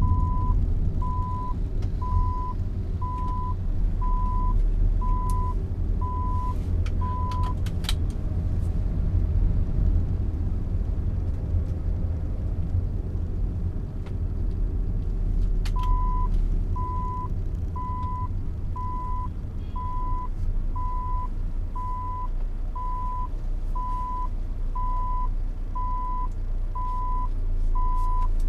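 Low engine and road rumble inside a car moving slowly in traffic, with a high, single-pitched electronic beep sounding about once a second; the beeping stops about seven seconds in and starts again a little past halfway.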